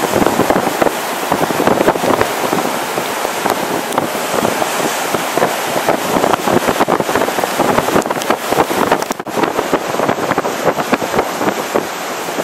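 Strong storm wind buffeting the microphone over the roar of heavy breaking surf, with rain; the wind briefly drops about nine seconds in.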